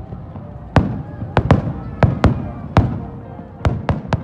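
Aerial fireworks shells bursting in quick, irregular succession: about nine sharp bangs, each with a short echoing tail.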